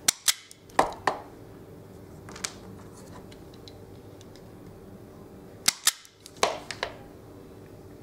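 Self-adjusting wire strippers snapping closed and springing open as insulation is stripped off wire ends: a cluster of sharp clicks in the first second and another about six seconds in.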